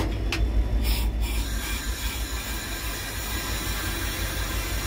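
Cab interior of an EMD WDP4 locomotive: its 16-cylinder 710 diesel engine runs with a steady low rumble. Two sharp clicks come right at the start as the control handles are worked, then a short burst of air hiss about a second in, which settles into a steady hiss.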